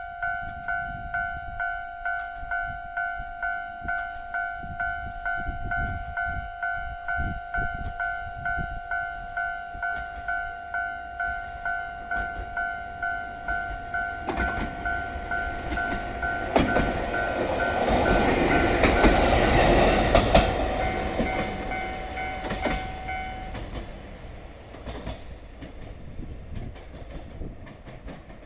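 Japanese level-crossing warning bell ringing at a steady beat of a little under two dings a second as a single-car JR Hokkaido H100 diesel-electric railcar comes up and passes over the crossing. The train's running noise builds from about halfway in and is loudest a few seconds later, with sharp wheel clicks over the rail joints and crossing. The bell stops about three-quarters of the way through, and the train's sound fades away.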